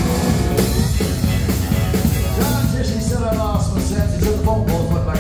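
Live country band playing: fiddle, pedal steel guitars, guitars and drums over a steady beat, with sliding melody lines.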